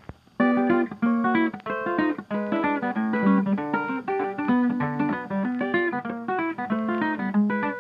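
Background music: a guitar playing a quick run of plucked notes, starting about half a second in.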